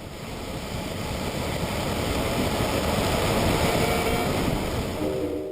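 Skateboard wheels rolling on pavement: a coarse, even rumble that grows louder over the first few seconds and then eases off.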